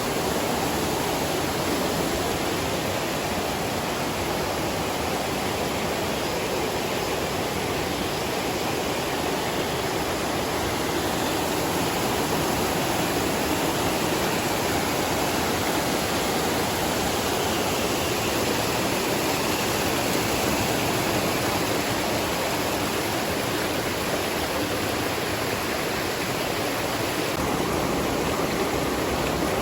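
Rushing water running steadily as an even, unbroken rush.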